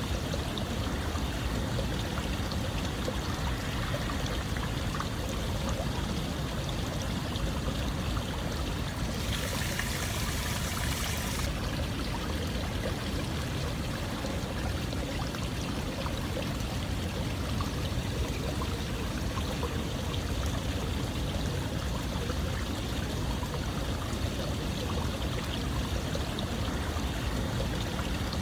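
Steady flowing water, an even rushing wash with no pauses. About nine seconds in, a brighter hiss joins it for roughly two seconds.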